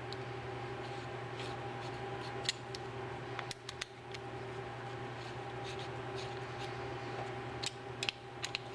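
Steady hum of a running machine motor in a machine shop, with scattered light metallic clicks and ticks over it.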